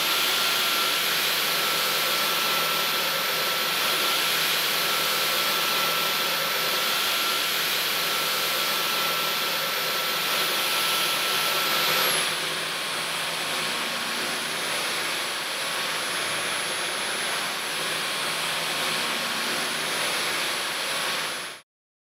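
Dyson V12 Detect Slim cordless stick vacuum running: a steady rush of air with a high motor whine. About twelve seconds in, the whine drops in pitch and the sound gets slightly quieter. It cuts off shortly before the end.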